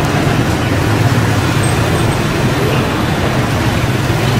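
Busy street traffic, with the steady running of motor scooter engines riding past.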